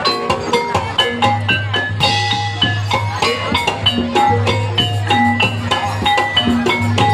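Dance music with a steady beat: rhythmic struck metal or mallet percussion playing short repeated notes over drums and a low bass.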